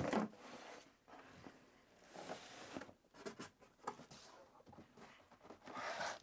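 Packaging rustling and scraping as items are lifted out of a cardboard box, with scattered small clicks and a longer rustle near the end.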